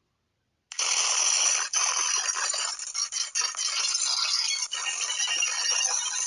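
VHS tape static and glitch noise: a harsh crackling hiss that cuts in suddenly just under a second in, with a few brief dropouts.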